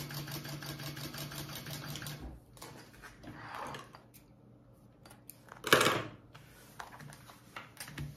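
Industrial sewing machine stitching steadily at a quick even rate, stopping about two seconds in. Then come rustles of the vinyl and fabric pieces being pulled free and handled, a loud thump about six seconds in, and a few light clicks near the end.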